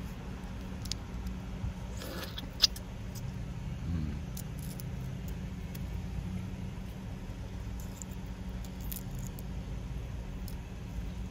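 Steady low hum of a car cabin, with a few light clicks and crackles from the cracked shell of a balut egg being handled. The sharpest click comes about two and a half seconds in.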